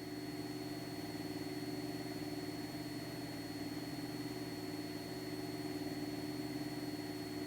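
Cessna 172 Skyhawk's engine and propeller droning steadily in flight, a low, even hum with a few held tones.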